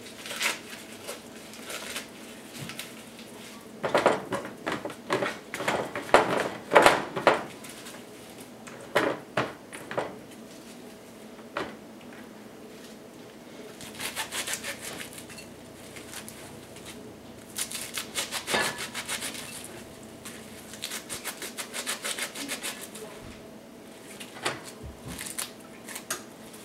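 Fresh leafy greens rustling and crackling as they are handled, torn apart and dropped into a glass bowl, in irregular bursts with short pauses between them.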